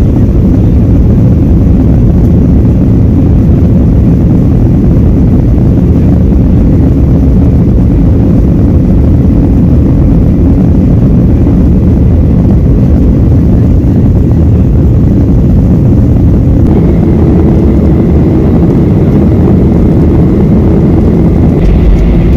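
Cabin noise inside a KLM Boeing 737-800 climbing out after takeoff: a loud, steady rush of the CFM56 jet engines and airflow. A faint high whine joins it about three-quarters of the way through.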